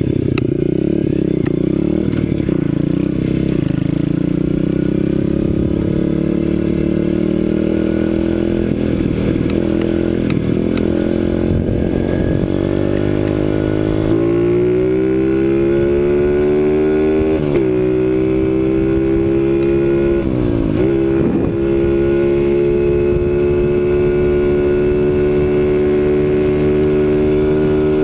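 CRZ 125 Pro pit bike's single-cylinder four-stroke engine under way. It runs at uneven, lower revs with some rattling over the first half, then revs climb in pitch, dip sharply twice and hold high near the end.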